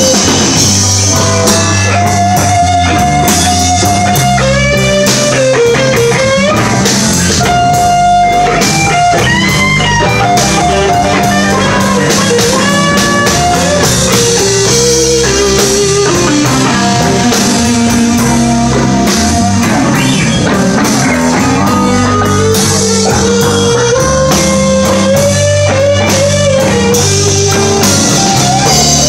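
Live blues band playing: a lead electric guitar line with bent, gliding notes over bass and drums.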